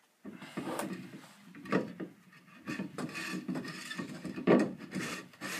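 Clear plastic filter housing bowl being handled and twisted onto its cap by hand, plastic rubbing and scraping with several knocks, the loudest about four and a half seconds in.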